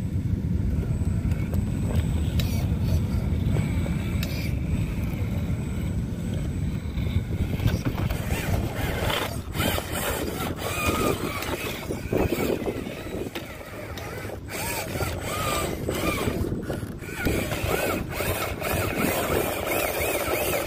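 Electric motor and gearbox of an RC4WD Trailfinder scale rock crawler whining as it crawls over lava rock, the whine rising and falling with the throttle, mostly in the second half. Under it runs a steady low rumble, with scattered short clicks of the tyres and chassis on rock.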